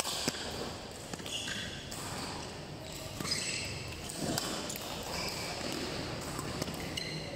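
Badminton rally: sharp racket strikes on the shuttlecock and sport shoes squeaking on the synthetic court as the players move.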